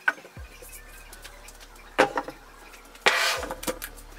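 Objects being set down on an MDF desktop. There is a light knock right at the start as an aluminium laptop stand is placed, a sharper knock about two seconds in, and a brief scraping noise about three seconds in, followed by a few small clicks.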